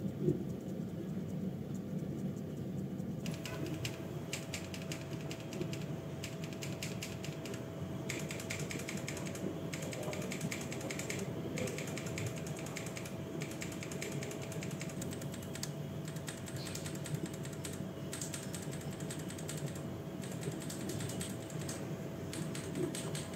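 Typing on a mechanical keyboard fitted with Tecsee Ruby linear switches, which have polycarbonate housings and UPE stems. A rapid, continuous run of keystroke clacks picks up about three seconds in, over a faint steady hum.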